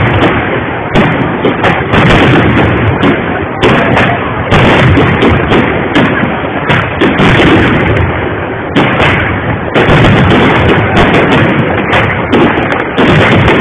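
Aerial fireworks bursting: loud, rapid bangs following one another almost without a break, easing briefly a few times.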